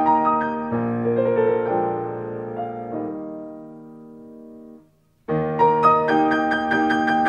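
Background piano music: a slow passage whose last chord rings and fades away about five seconds in, then after a brief silence a new, brighter piano passage begins.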